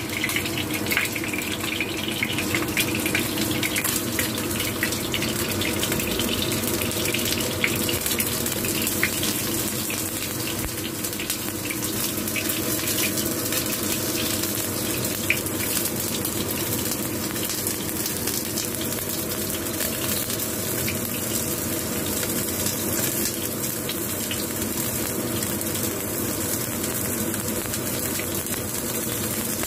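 Oil sizzling steadily as fish-stuffed eggplant slices shallow-fry in a nonstick pan, with a few faint spattering ticks and a steady low hum underneath.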